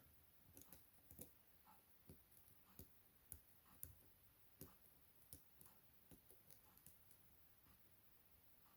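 Faint, irregular metallic clicks and taps of a hook pick working the pins of a Chubb M3 lock under tension, about two a second.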